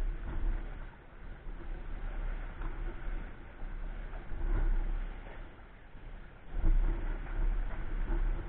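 Wind buffeting the microphone in gusts, a deep rumble that swells and fades, over the wash of sea against shore rocks.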